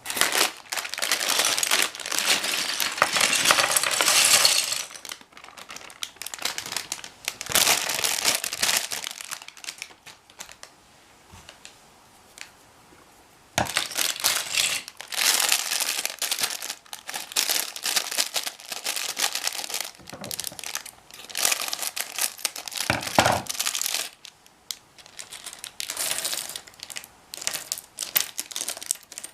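LEGO bricks clattering and rattling together while plastic parts bags crinkle, in bursts of several seconds with a few quiet pauses between them.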